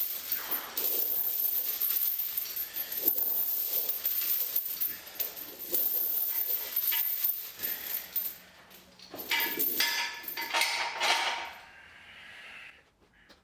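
Metal gym equipment clinking and clanking in a run of short knocks with metallic ringing, dying down near the end.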